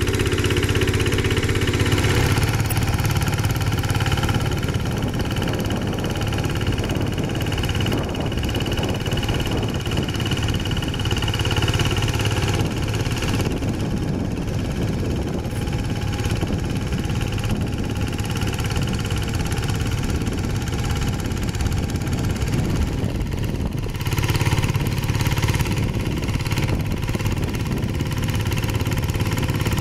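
Single-cylinder diesel engine of a two-wheel hand tractor running steadily under load while its rotary tiller churns the soil, with a slight change in tone about two seconds in and a little louder near the end.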